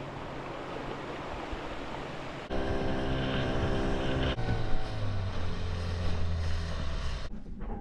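Wind and water noise, then, after a cut, a boat's motor running steadily.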